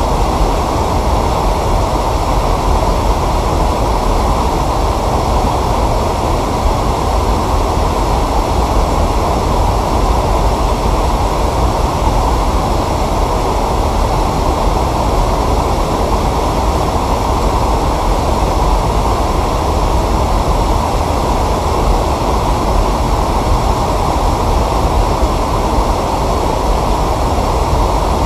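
Steady, loud rumbling noise that holds level throughout, with no distinct events in it.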